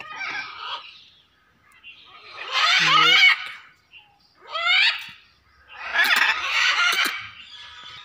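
Blue-and-yellow macaws squawking loudly: a fainter call at the start, then three loud calls, the last and longest about six seconds in.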